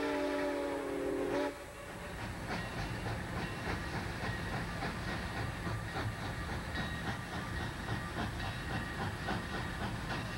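Southern Pacific 786, a 2-8-2 Mikado steam locomotive, sounds its whistle in a chord of several tones that cuts off about a second and a half in. Then the locomotive comes on working steam, its exhaust beating in a quick, even rhythm over a steady hiss and rumble.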